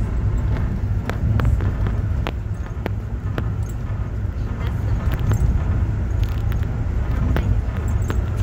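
Ride noise inside an Amtrak Northeast Regional passenger coach running at speed: a steady low rumble with scattered sharp clicks at irregular intervals.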